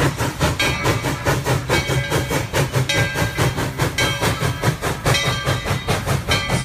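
Steam train led by Tweetsie Railroad No. 12 moving slowly along the track: a fast, even clatter over a steady low rumble, with a ringing tone recurring about every second and a half.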